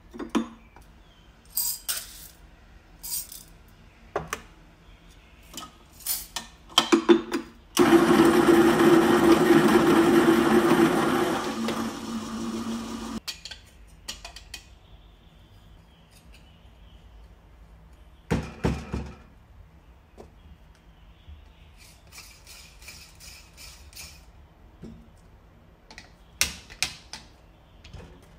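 Electric coffee grinder running for about five seconds with a steady hum, grinding beans for espresso. Around it come short clicks and clinks of metal coffee tools, and a few sharp knocks as the dosing cup is tapped over the portafilter.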